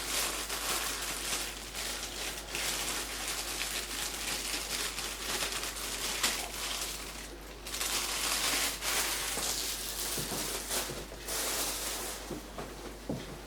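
Handling noise as raw wood pigeon breasts are put into a sticky marinade: steady rustling and crinkling with wet squishing, pausing briefly a couple of times.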